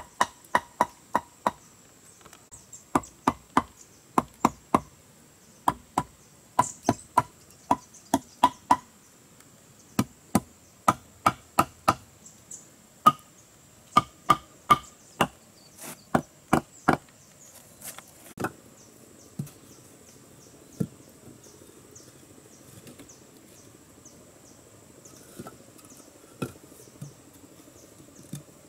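A machete hacks at peeled wooden logs in quick runs of sharp chopping strokes, about two to three a second, for roughly the first seventeen seconds. After that come a few scattered single knocks. A steady high insect drone runs underneath.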